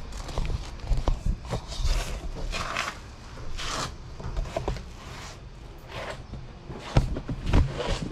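Scattered short scuffs and scrapes with a few sharp knocks, two of them louder near the end: handling and movement noise on a gritty concrete floor.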